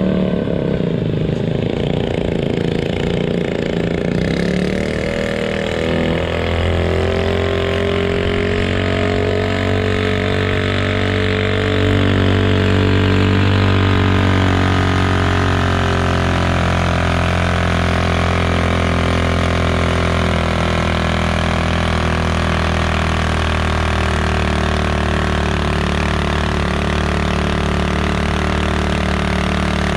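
Small garden tractor engine running steadily, its pitch rising slightly several seconds in and then holding.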